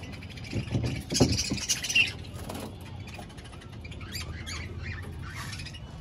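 A wooden budgie nest box knocking against the aviary wall as it is fitted by hand, a few clunks in the first two seconds, with budgerigars chirping and chattering throughout.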